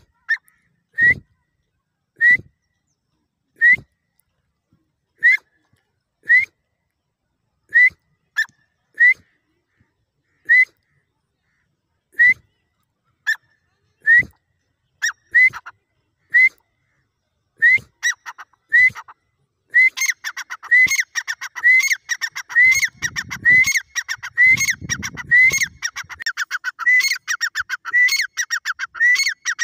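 Grey francolin (dakhni teetar) calling: short, high whistled notes about once a second, each rising and then dropping. About two-thirds of the way in, they break into a fast, dense run of repeated notes.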